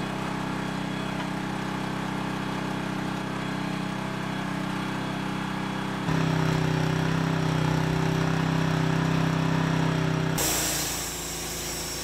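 Norwood HD38 Max portable sawmill's engine running steadily. About six seconds in it gets louder with a lower, stronger hum, and it changes again near the end, turning quieter with an added high hiss.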